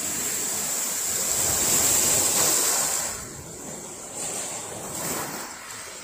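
Sea waves washing onto the beach. One wave rushes in at the start, is loudest about two seconds in and then draws back, and a smaller wash follows near the end.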